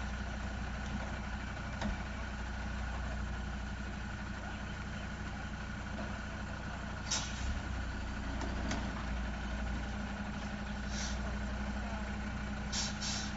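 Heavy truck engine idling steadily, with a few brief hisses, the loudest about seven seconds in.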